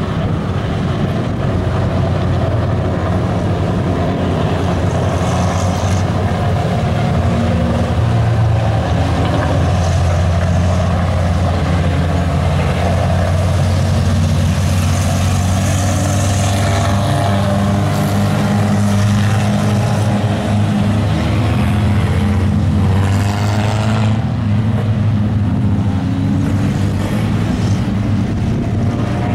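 Several tuner-class race cars running laps on an oval, a steady engine drone with pitch rising and falling as cars pass by.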